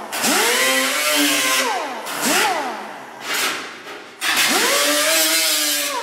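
Air-powered right-angle die grinder with a small abrasive disc cleaning up sheet-metal edges to bare steel before welding. Its whine rises as it spins up, runs about a second and a half and falls away, gives a couple of short blips, then spins up again about four seconds in and winds down near the end, with a hiss throughout.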